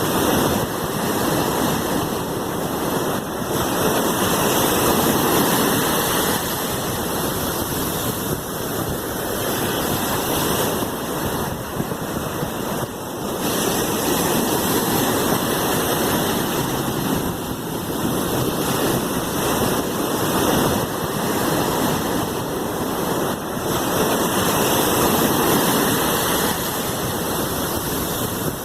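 Sea waves washing in continuously, a steady rush of surf that swells and eases every several seconds.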